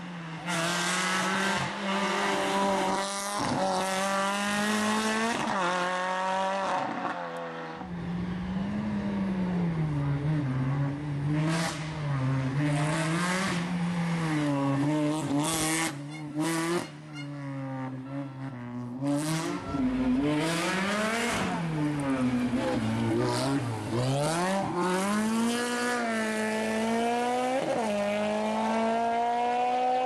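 Rally car engine revving hard, its pitch repeatedly climbing and dropping back through gear changes and lifts, with short bursts of tyre and skid noise.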